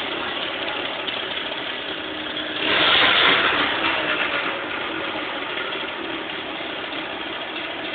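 Rebored, water-cooled Piaggio Hexagon 150 two-stroke scooter engine running on its first start after assembly, with a loose exhaust. It idles, gets one short blip of throttle a little under three seconds in, then settles back to idle.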